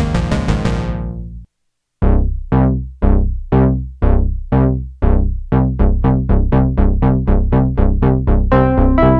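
Sequential Prophet X synthesizer playing: a dense, rapidly repeating patch fades out about a second and a half in. After a short silence a new patch starts, sequenced plucked bass notes whose brightness falls away after each hit, about two a second and then quicker, with held higher notes joining near the end.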